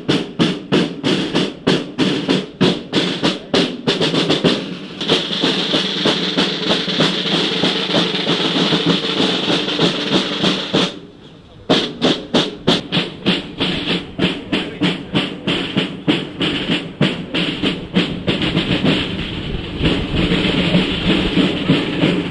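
Marching band music led by field snare drums beating a steady march cadence, going into a continuous drum roll for several seconds. The sound breaks off for a moment about eleven seconds in, then the march beat resumes.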